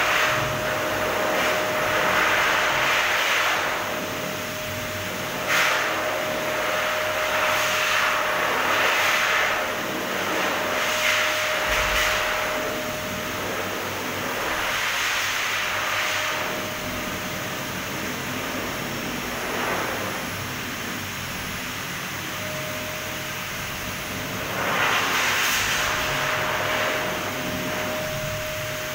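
Wall-mounted pet grooming dryer blowing air through its hose and nozzle: a steady whine under a rushing hiss of air that swells and fades several times as the nozzle is swept about.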